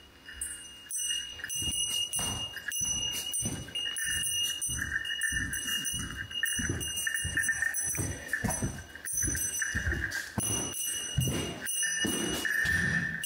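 Footsteps crunching over debris on a littered floor, several a second, under a steady high electronic ringing jingle from a Yobikomi-kun Mini DX portable melody speaker carried along.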